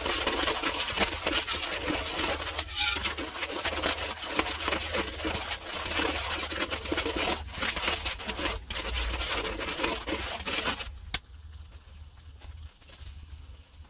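Butter and garlic sizzling in hot oil in a wok, with many small crackles; the sizzle drops away sharply about eleven seconds in.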